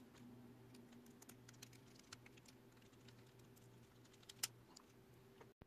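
Faint, scattered small clicks of a hand screwdriver driving M2 self-tapping screws into a 3D-printed plastic track idler to hold its bearing mount, with one sharper click about four seconds in.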